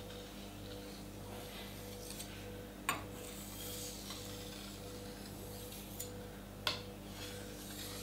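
Kitchen knife blade being stroked across a wet water stone, a gritty scraping hiss that swells and fades with the strokes. Two sharp clicks come about three and about seven seconds in.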